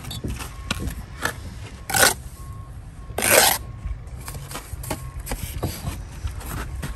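Bricklayer's trowel scraping and spreading sand-and-cement mortar along the top of a brick course. There are two loud scrapes, a short one about two seconds in and a longer one about a second later, with lighter taps and scrapes between.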